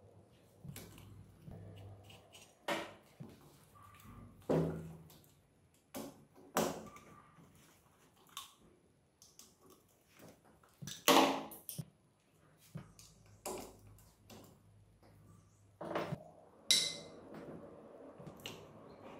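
Hand tools clinking and knocking against a Bajaj three-wheeler engine casing as it is taken apart with a ring spanner: scattered sharp metallic clinks every second or two, the loudest about eleven seconds in.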